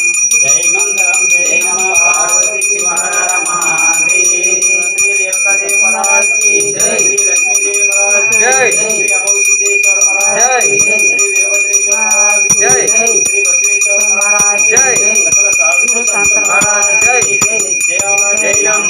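Temple puja bell rung rapidly and continuously, a steady high ringing, with music and voices rising and falling beneath it.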